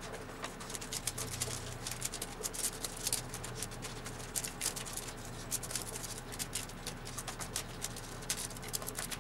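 Wet wooden skewers being stirred and shifted by hand in a plastic tub of dye water with soaked crepe paper: irregular light clicks and clatter of the sticks against each other and the tub.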